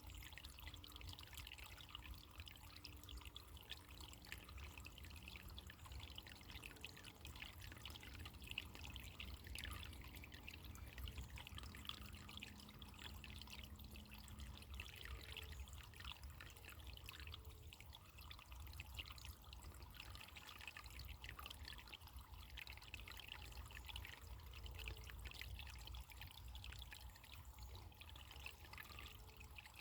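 Running water trickling and pouring steadily, with a constant flickering splash.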